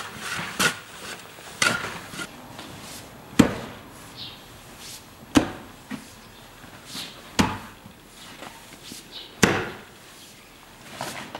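Heavy blows from a hand tool, one about every two seconds, four loud strikes in all with a few lighter knocks between them.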